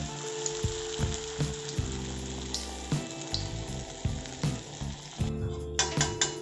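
Neyyappam batter frying in hot coconut oil in a cast-iron kadai, a steady sizzle that drops away about five seconds in. Background music with a steady beat plays throughout.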